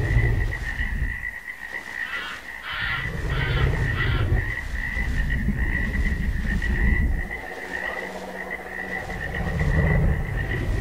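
A steady high chirring chorus runs throughout, with deep rumbling swells that rise and fade several times. A short rasping burst comes about two to four seconds in.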